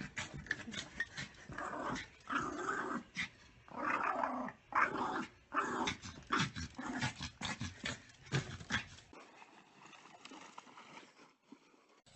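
A dog growling in repeated bursts, mixed with scattered sharp clicks and knocks. The sound thins out and drops away about nine seconds in.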